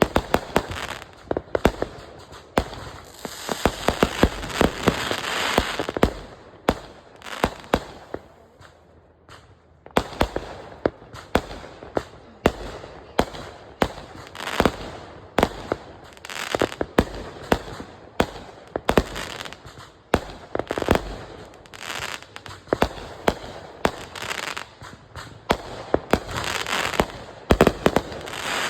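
Consumer firework cakes going off in rapid volleys of sharp bangs and crackle, with a short lull about a third of the way in before the barrage resumes.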